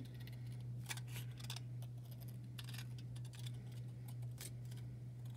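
Small scissors snipping slowly around a circle in a sheet of cellophane: a run of irregular, soft snips and crackles. A steady low electrical hum sits underneath.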